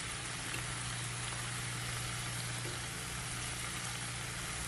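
Spinach sizzling in a hot frying pan, a steady even hiss, with a low steady hum underneath.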